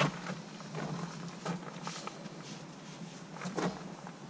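Faint background with a low steady hum, a sharp click at the start and a few soft scattered clicks and rustles of handling.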